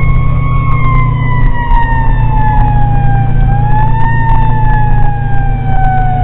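Fire engine siren wailing. Its pitch sinks slowly, jumps up briefly about four seconds in, then sinks again, over the steady low rumble of the truck.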